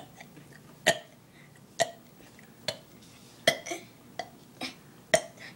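A person making a series of short, sharp, clipped gulps from the throat, each cut off quickly. They come about one a second at first and closer together near the end.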